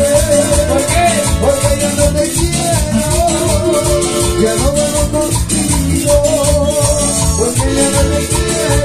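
Live Latin band playing an instrumental passage: electric bass and a steady beat, a metal güiro scraping a constant rhythm, and a melody line over them.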